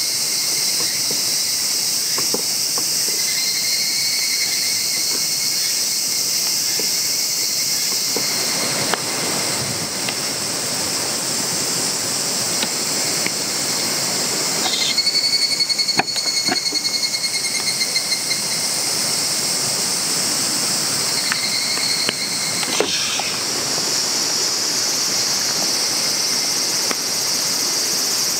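A steady, high-pitched drone of insects in summer woodland. Three times a pulsing, buzzing call rises over it and then stops, and a few light knocks come from a knife and a seasoning shaker on a wooden cutting board.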